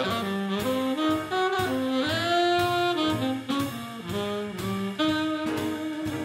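Live jazz quartet playing swing: a saxophone carries the melody, sliding up into a long held note about two seconds in, over piano, double bass and a drum kit keeping a steady beat.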